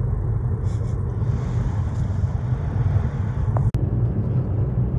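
Steady low rumble of engine and road noise inside a moving car's cabin, broken once by a sharp click near the end.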